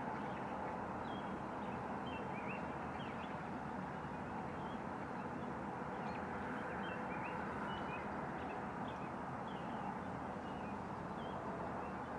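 Outdoor evening ambience: a steady, even hum, like distant traffic, with many short, high chirps scattered through it.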